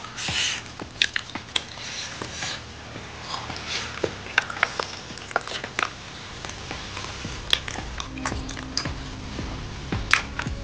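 Close-up eating sounds of people chewing steamed momo dumplings, with many small wet mouth clicks and lip smacks. Faint background music comes in near the end.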